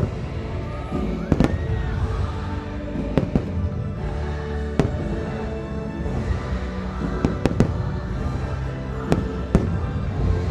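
Fireworks going off in a show: sharp bangs every second or so, sometimes two close together, over loud show music.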